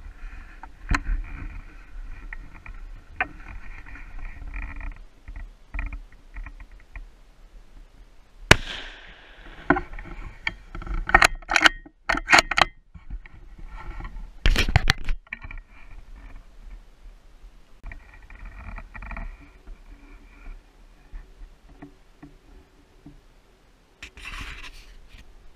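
Handling noise from a rifle-mounted camera: scraping and rubbing with a series of sharp knocks and clicks as the rifle is moved and shifted, the loudest knocks about a third of the way in and just past the middle.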